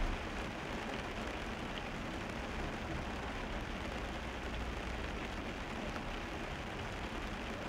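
Car driving on a wet road, heard from inside the car: the steady hiss of tyres on wet asphalt over a low road rumble.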